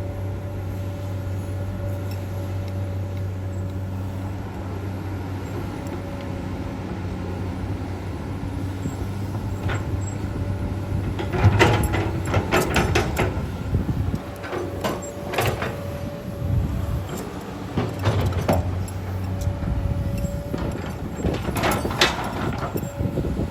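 Komatsu PC200-8 hydraulic excavator's diesel engine running steadily under load while digging and casting soil. From about halfway through, a run of sharp clanks and knocks, the loudest a little after the middle and again near the end.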